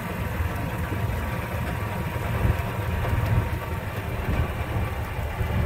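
Steady low rumble of the vehicle's engine and road noise, heard from the vehicle while driving along a residential street.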